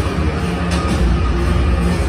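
Stadium PA music for the starting-lineup introduction, played over the loudspeakers of a domed ballpark, with a heavy bass line and a sharp hit about a second in.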